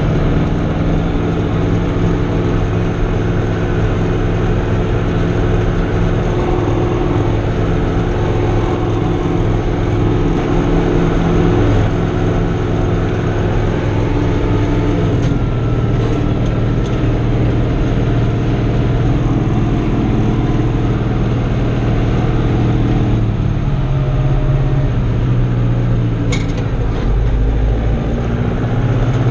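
Fiatagri 88-94's 3.9-litre turbocharged diesel engine running steadily under load, heard from inside the cab while it drives a BCS Neva R8 eight-disc mower. The engine note shifts in pitch a few times, most clearly a few seconds before the end.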